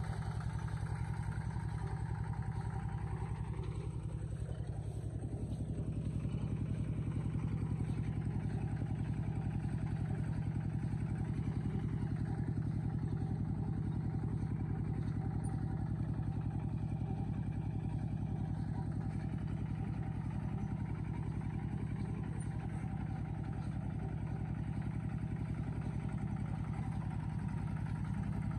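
A vehicle engine running steadily at an even speed, a continuous low drone.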